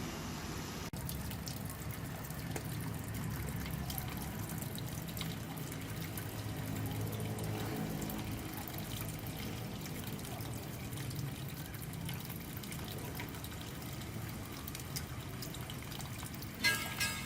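Water trickling and splashing steadily down a small hand-built garden waterfall.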